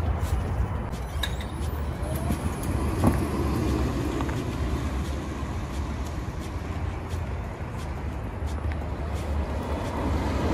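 Chevrolet Volt driving slowly around a concrete parking lot, its tyre and vehicle noise heard under a heavy low rumble.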